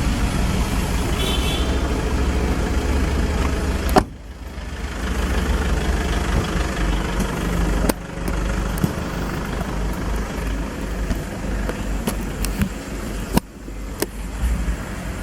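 Car on the move: a steady low engine and road rumble, broken off and resumed abruptly three times.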